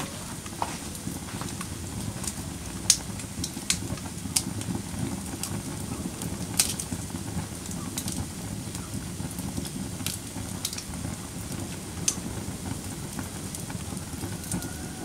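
Wood fire burning in a fireplace: a steady low rumble with irregular crackles and pops, the sharpest about 3, 6.5 and 12 seconds in.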